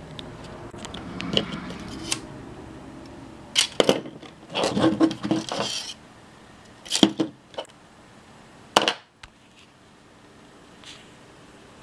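Small metal and plastic parts from a camcorder tape mechanism being handled on a tabletop: scattered clicks and knocks, a cluster of rattling clatter in the middle, and two sharp knocks later on.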